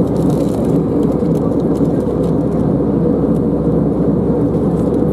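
Steady cabin noise of a jet airliner at altitude: the engines and the rush of air past the fuselage, heard from inside the cabin as an even, low rumble that does not change.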